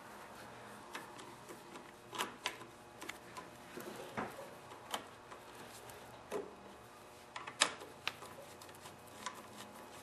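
Light, irregular metallic clicks and taps of a nut driver and small steel parts as the little bolt on the choke-cable clamp is fitted and tightened on a small engine's carburetor linkage.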